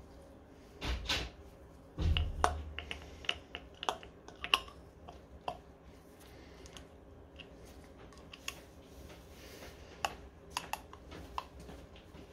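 Small metal parts clicking and tapping as they are handled and fitted into the hub of an electric scooter's rear wheel: a string of light, irregular clicks, densest in the first half, with a couple of dull knocks near the start.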